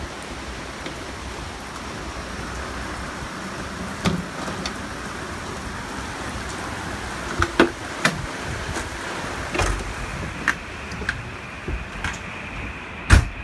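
Steady rain falling on and around a travel trailer, with scattered knocks and clicks as someone enters through the trailer's door. The loudest is a single thud near the end.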